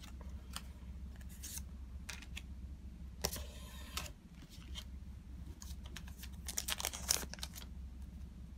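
Digimon trading cards being handled: clicks and snaps as cards are flicked through and set down on a playmat, with a short sliding rustle a little after three seconds in and a quick run of snaps around seven seconds. A low steady hum runs underneath.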